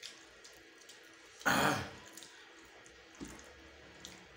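A short, loud breathy noise from one of the eaters about a second and a half in, lasting about half a second, with a few faint mouth clicks of eating around it.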